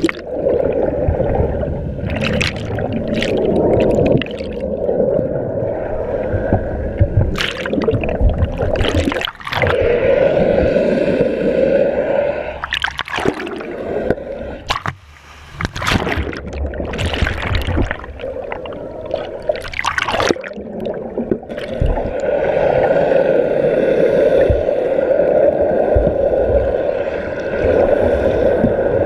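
Water sloshing and gurgling around an underwater camera held near the sea surface, over a steady drone, with about a dozen short splashy rushes as water breaks over it.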